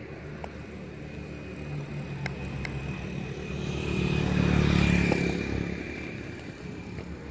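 A motor vehicle passing close by: its engine grows louder to a peak about two-thirds of the way through, then fades away. A few light clicks come before it.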